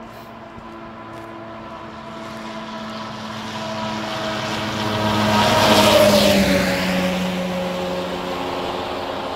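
A road vehicle approaches and passes close by. Its engine tone and tyre noise swell to a peak about six seconds in, then fade, with the pitch dropping slightly as it goes past.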